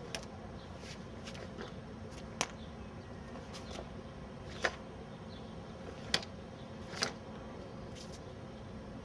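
Sharp snaps from a barefoot karate practitioner's kata movements, five of them spaced irregularly one to two seconds apart, over a steady faint outdoor hiss.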